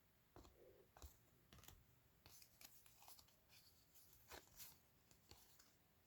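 Faint, scattered swishes and light clicks of trading cards being slid and flipped over by hand, one after another.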